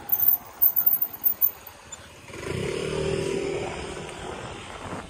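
A motor scooter passes close by: its small engine note swells about two seconds in and fades away over the next two seconds. It is preceded by a few loud bumps in the first second and a half.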